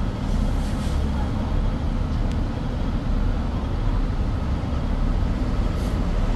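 Steady low engine rumble of a bus standing alongside, over the noise of street traffic.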